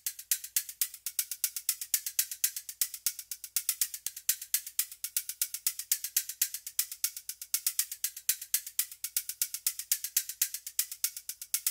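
Rapid, even mechanical clicking, about seven clicks a second, like a ratchet or fast ticking.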